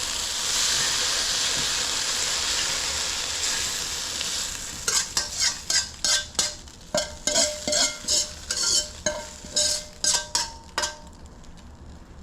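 Kung pao tofu sizzling in a hot pan, then a quick series of sharp knocks and scrapes as a utensil stirs against the pan, each knock ringing briefly, while the sizzle fades.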